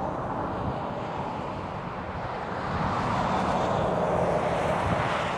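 Highway traffic: a vehicle's tyre and engine rush swells about three seconds in and eases off near the end, with a faint low engine hum during the swell.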